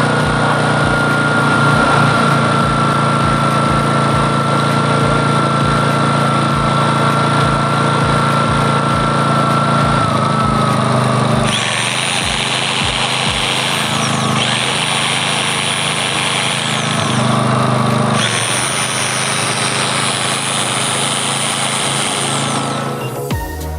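MAC AFRIC MGENER004 inverter generator's small engine running steadily. Its tone changes abruptly a few times from about halfway through.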